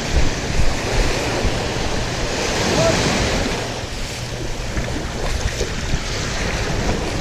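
Wind buffeting the microphone over the steady wash of sea waves and splashing water.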